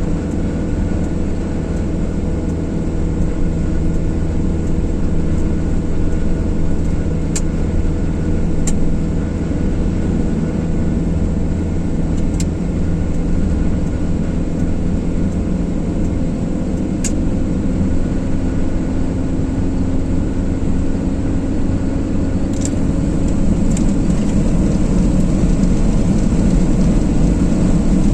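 A car driving at steady speed: a continuous engine hum under tyre and road noise, with a few faint clicks here and there. It grows slightly louder near the end.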